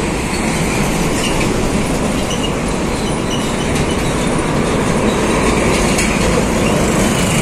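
Heavy trucks passing close by: a container-hauling semi-trailer, then a Shacman tractor unit towing an empty flatbed trailer. There is a steady rumble of engines and many tyres on the road.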